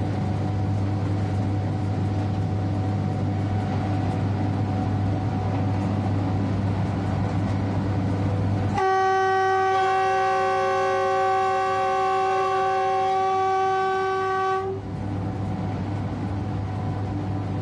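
Electric locomotive running with a steady hum heard from the driver's cab. About nine seconds in, its horn sounds one long chord of several tones for about six seconds, then cuts off abruptly, and the running hum carries on.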